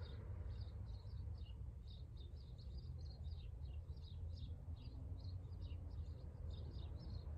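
Small birds chirping outdoors: many short, high chirps following one another, over a steady low background rumble.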